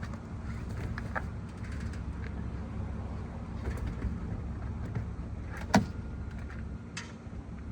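A steady low vehicle hum with scattered light clicks, and one sharp knock a little under six seconds in, followed by a smaller one about a second later.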